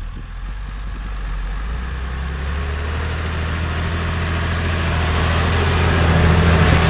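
Massey Ferguson 3125 tractor's diesel engine running steadily while pulling a four-furrow plough, growing steadily louder as it approaches and loudest near the end.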